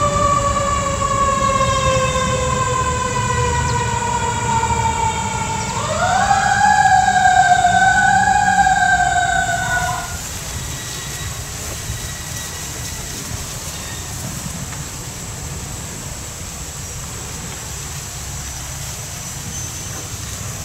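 Diesel locomotive air horn sounding one long note that slowly sags in pitch, jumps back up about six seconds in, wavers, and cuts off about ten seconds in. A low steady rumble runs on underneath and after it.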